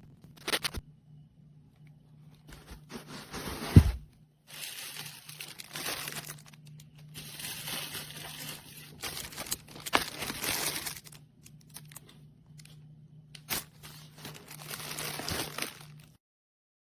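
Packaging crinkling and rustling in repeated stretches as the kit's pieces are handled, with a few sharp clicks and one loud thump about four seconds in, over a faint low hum. It all stops abruptly near the end.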